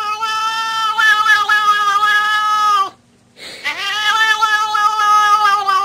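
An animal's long, drawn-out howling calls: two held notes of about three seconds each, each dropping in pitch as it ends, with a short break between.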